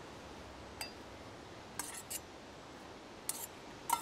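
Stainless steel camping pans clinking as they are handled: a few scattered light metallic clicks, the loudest near the end with a brief ring.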